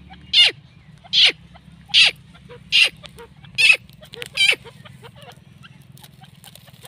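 Grey francolin calling: a run of six loud, sharply falling call notes, about one every 0.8 seconds, stopping about four and a half seconds in. Faint shorter chirps follow.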